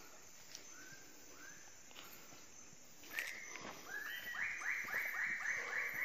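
Lesser bird of paradise calling: a few scattered notes, then from about three seconds in a quick run of repeated arched notes, about four a second, getting louder toward the end.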